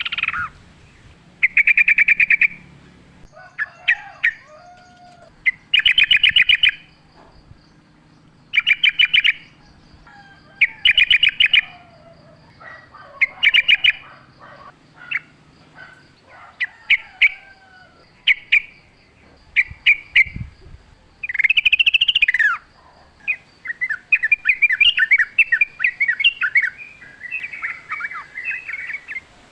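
Yellow-vented bulbul (trucukan) singing: short, chattering phrases repeated every one to three seconds, running into a longer stretch of fast chatter near the end. Softer, lower gliding calls come in between, and a faint steady high tone sits behind.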